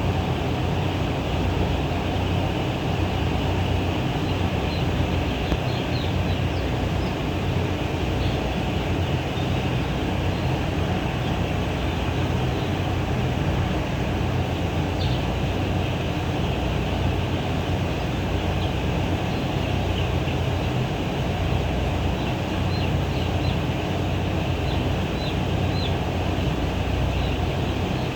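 A steady low mechanical drone with many short, high peeps scattered through it, typical of chicks in a poultry house.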